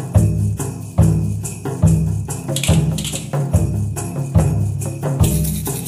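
Background music with a steady beat: deep bass notes land a little more often than once a second, under shimmering, jingling high percussion.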